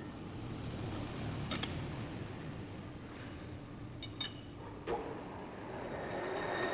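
Metal lathe running with a steady mechanical rumble, with a few sharp metallic clinks and a faint high tone near the end.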